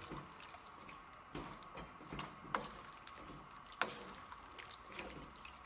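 Curry being stirred in a wok: faint scattered ticks and taps of the stirring utensil against the pan, with two sharper knocks around the middle, over a faint steady hum.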